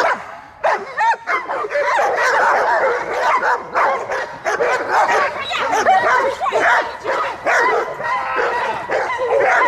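Several young German shepherds barking and yelping in overlapping volleys, almost without pause, as they are worked up against a decoy's bite sleeve in protection training.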